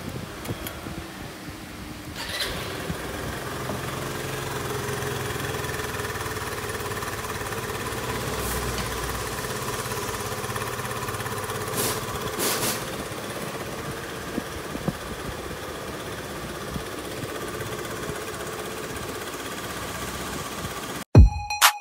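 Romeo 125 scooter engine running steadily with an abnormal noise and a few sharp ticks, a fault the owner suspects lies in a damaged starter disc or main crankshaft. About 21 s in it cuts off suddenly.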